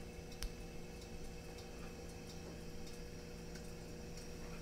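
Quiet kitchen room tone with a steady low hum, one sharp click about half a second in, and scattered faint ticks.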